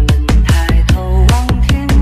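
Vinahouse-style electronic dance music: a fast, steady beat over a heavy bass line with short synth notes.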